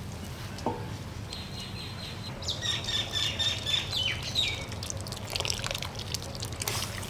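A bird sings a run of high chirps in the background during the first half. Near the end, liquid is poured from a jug into a steel wok of simmering chickpea curry, splashing into the sauce.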